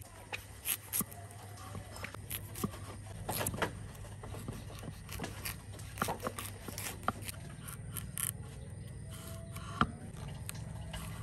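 Irregular scraping and sharp clicks of hand work preparing a pork hock, over a steady low hum.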